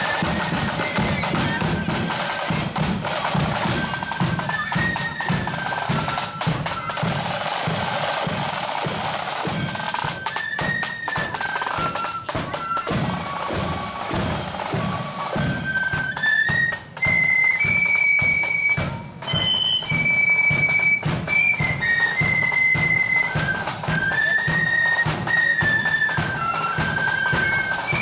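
Marching flute band playing a tune: a row of flutes carries the melody in unison over snare drums and a steady drum beat.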